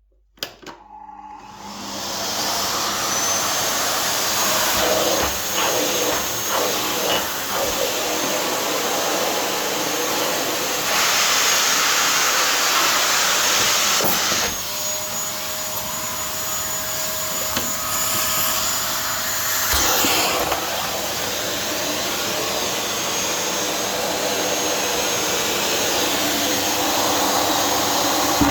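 Vacuum cleaner switched on about a second in, its motor spinning up to a steady running noise with a thin high whistle. Partway through the hiss of the suction grows louder for a few seconds, then settles back.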